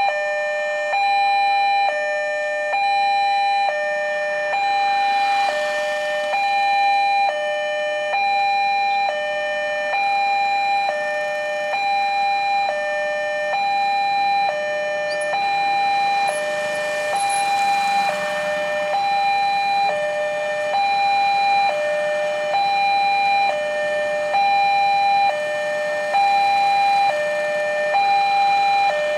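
Railway level-crossing warning alarm of a LEN crossing system, sounding an electronic two-tone chime that alternates between a higher and a lower note about once a second. It is the signal that a train is approaching and the barrier is down. A rushing noise swells twice beneath it.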